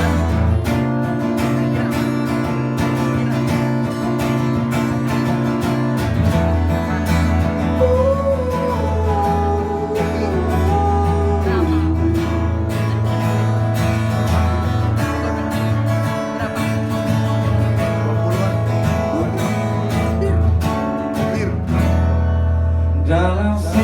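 Live acoustic folk music: strummed acoustic guitar chords playing the opening of the song, with a sliding melodic line joining about eight seconds in.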